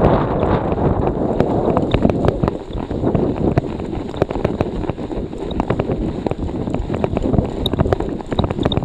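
Storm wind buffeting the action camera's microphone while a cyclocross bike rides through snow, a steady rushing noise with frequent small clicks and knocks from the bike.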